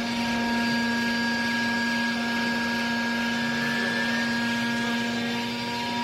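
Vertical hydraulic textile baler running: its electric motor and hydraulic pump give a steady whine over a hiss as the twin rams drive the press plate down onto used clothes.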